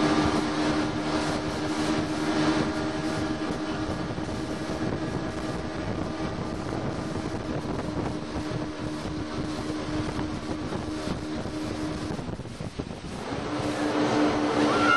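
Motorboat engine running steadily under way, with wind and water rush. About twelve seconds in the engine note falls away briefly, then picks up again near the end.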